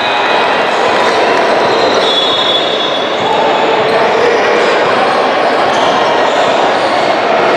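Echoing basketball-gym ambience: a steady wash of indistinct voices from players and spectators, with players' footsteps and a few brief sneaker squeaks on the hardwood court.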